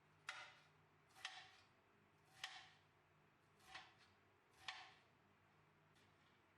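Five faint, short taps or knocks at irregular intervals of about a second, over near silence.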